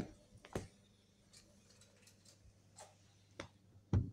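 Two kittens play-fighting on a cushioned sofa: a soft thump as one lands on the other, then scattered light clicks and scuffs as they wrestle, with a louder thump near the end.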